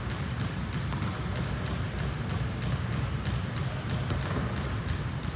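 Smallsword fencing practice: scattered sharp clicks and thuds at irregular times over a steady low rumble.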